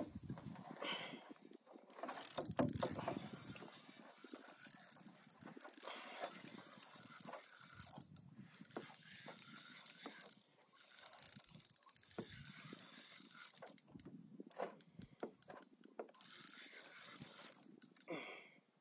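Fishing reel being cranked, a line being reeled in, in several spells of rapid fine clicking with short pauses between.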